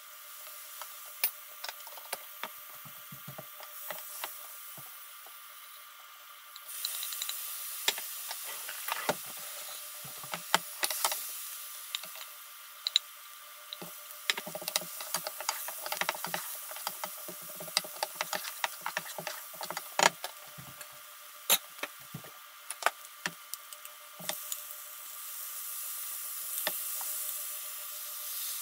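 Butter and then onion and aromatics sizzling in a nonstick frying pan, with frequent sharp clicks and taps of a metal spoon and tongs against the pan. The sizzling grows louder about seven seconds in.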